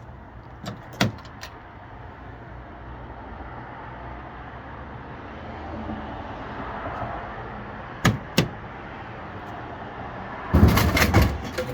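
Vendo BeMax bottle vending machine working through a vend: two sharp clicks near the start and two more about eight seconds in over a steady low hum, then a loud clattering thump about ten and a half seconds in as the bottle drops into the delivery bin.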